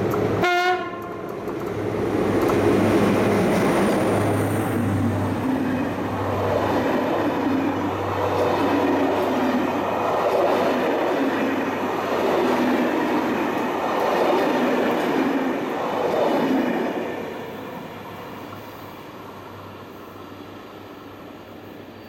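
SNCF BB 67400-class diesel-electric locomotive passing under load on a climb, sounding a short horn blast about half a second in. Its engine running is followed by the Corail coaches rolling by with a regular clickety-clack of wheels over rail joints, and the sound fades as the train draws away near the end.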